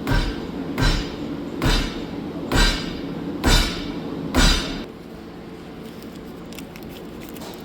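Six evenly spaced hammer blows on metal, about one a second, during a hydraulic cylinder rebuild. They stop after about four and a half seconds.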